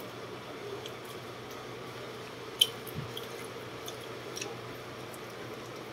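A person eating rice and stewed fish with his fingers: soft wet chewing and mouth sounds, with a few short clicks, one sharp and loud about two and a half seconds in, over a steady low hum.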